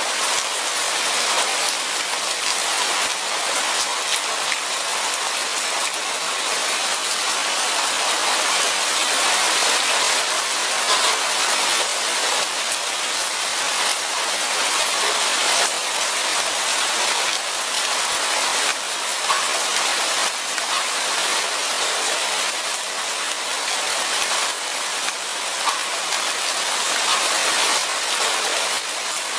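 Steady light rain falling, a continuous patter with many small drops ticking on surfaces.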